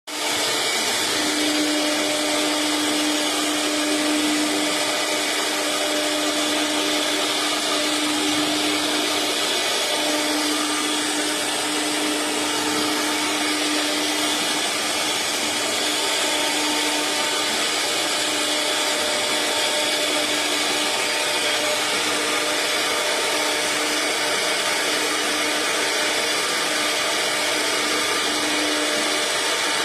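CNC router spindle cutting MDF: a steady whirring hiss with a constant hum-like tone that dips now and then.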